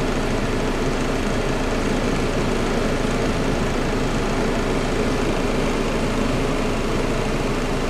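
Mazda 626's 2.0-litre FS four-cylinder engine idling steadily shortly after a cold start.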